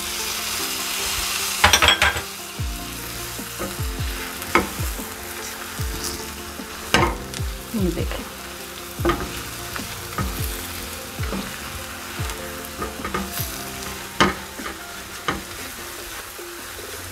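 Whole cherry tomatoes sizzling in hot oil and spices in a frying pan, stirred with a spatula that scrapes and knocks against the pan every second or so. The sizzle is loudest in the first couple of seconds.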